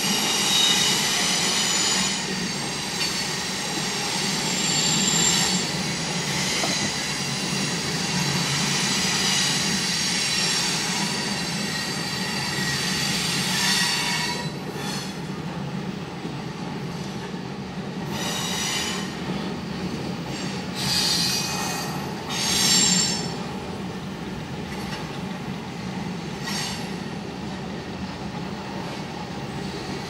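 Freight train cars rolling past, heard from inside a car, with steel wheels squealing. A steady high-pitched squeal over the rumble for about the first half, then short spells of squealing.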